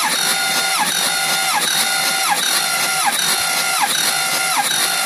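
Starter motor cranking a never-fired, rebuilt Ford 6.0L Power Stroke V8 diesel with its glow plugs removed, for a compression test. A steady whine dips in pitch in an even rhythm, about every 0.6 s.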